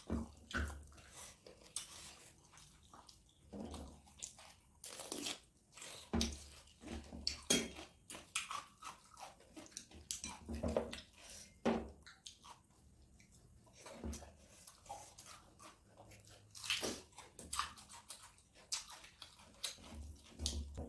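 Close chewing and eating sounds: a person chewing a meal of mutton curry and rice, with irregular soft crunches and small mouth clicks.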